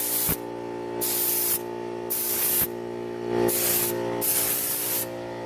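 Paint spray gun hissing in about five short passes, each stopping and starting again, while laying the first base coat of paint on a car bumper. A steady hum runs underneath.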